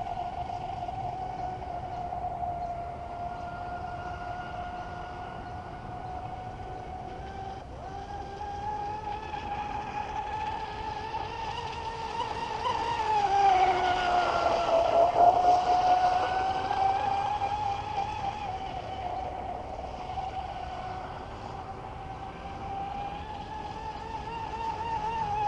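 Traxxas M41 Widebody RC boat's brushless electric motor whining steadily as the boat runs across the water. About halfway through it grows louder and its pitch drops as it passes closest.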